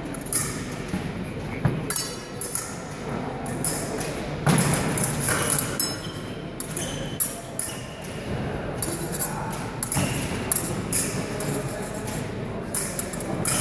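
Épée bout: fencers' feet stamping on the piste and blades clinking, short sharp knocks scattered throughout over a background of voices in a large hall.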